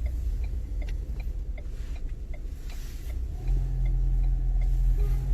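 Car engine and road rumble heard from inside a moving car, with a faint, even ticking in the first few seconds; about three and a half seconds in the engine note rises and the rumble grows louder.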